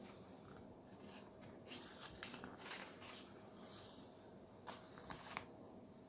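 A picture book's paper page being turned by hand: faint rustling and a few soft taps, otherwise near silence.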